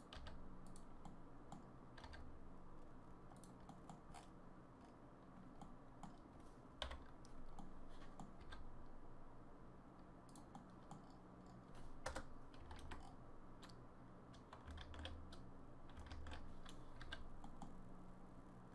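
Faint, irregular clicking of a computer keyboard being used, over a low steady hum.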